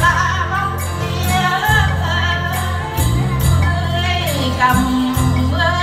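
Women singing a Vietnamese folk song together, with long-necked lute accompaniment and a steady jingling beat.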